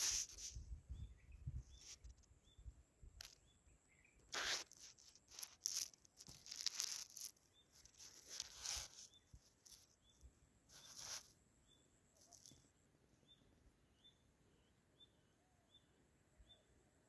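Faint outdoor riverside ambience: a small chirp repeats about twice a second throughout, over a steady high whine that stops about twelve seconds in. Scattered short rustling noises come in the first half.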